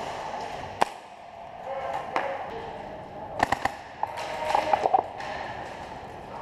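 Airsoft gunfire: single sharp snaps about a second and two seconds in, then quick strings of three or four shots about three and a half and five seconds in.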